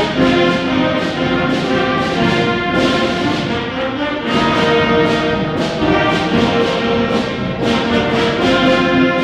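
School concert band playing, brass to the fore, in held chords that change every second or so.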